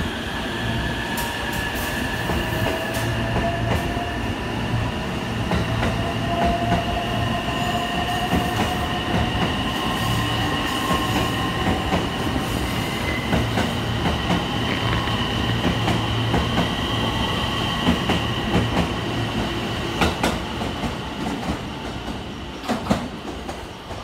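JR West 225 series electric train pulling out and accelerating past, its traction motors whining in several slowly rising tones over the rumble and clatter of the wheels. The sound fades over the last few seconds as the train moves away.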